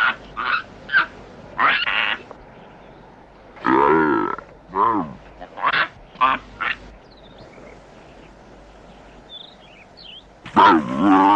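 A baboon's calls: a string of short barks and screeches, with a longer, lower grunting call about four seconds in and another loud one near the end.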